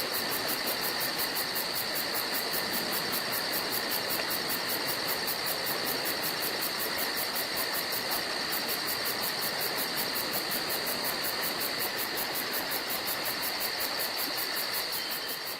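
Forest ambience dominated by insects chirring: a steady high whine with a fast, even pulsing on top, over a constant hiss.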